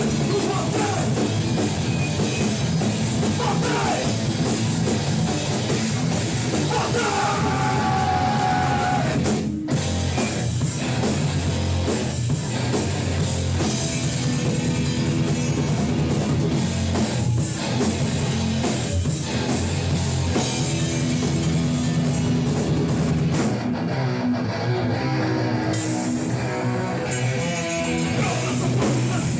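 Hardcore punk band playing live: distorted electric guitars over a drum kit in a fast, loud instrumental passage, with a brief break about nine and a half seconds in.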